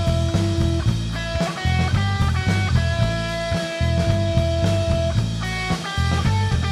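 Live rock trio playing without vocals: electric guitar playing a lead line of long held notes over bass guitar and a drum kit.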